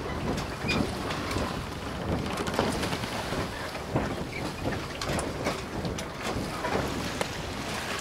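Sailing ship under way: a steady rush of wind and water with frequent short knocks scattered through it.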